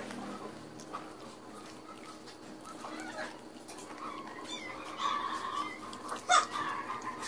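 A domestic animal's calls in the background: wavering, pitched cries that begin about five seconds in, with one sharp, loud cry about a second later.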